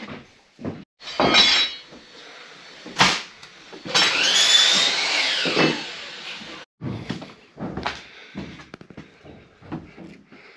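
Finish-carpentry work noise: scattered knocks and clicks of boards and tools, a short noisy burst about a second in and a sharp crack about three seconds in. In the middle, a power tool runs for about two and a half seconds with a whine that rises and then falls.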